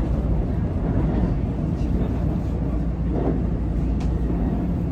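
Train running, a steady low rumble with a few faint ticks.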